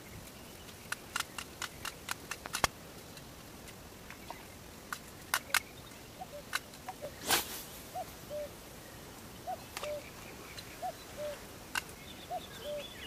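Cheap spinning reel being cranked, a pair of short squeaks on every turn repeating about every one and a half seconds, the reel already squeaking and crackling. Before that comes a run of sharp clicks and, about seven seconds in, a loud whoosh.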